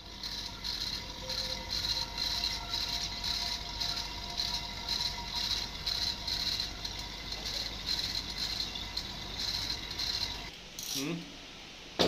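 Small electric refrigeration vacuum pump running, a steady hum under a rhythmic hissing rattle that pulses two or three times a second; it stops shortly before the end.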